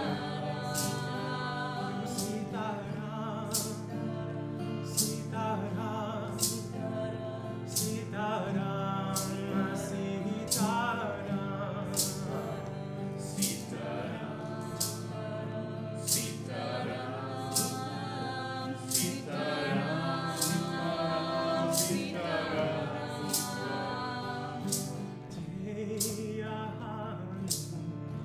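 Live Hindu sankirtan: voices chanting a devotional call-and-response kirtan in phrases over a steady drone. Small hand cymbals strike an even beat about every 0.7 s.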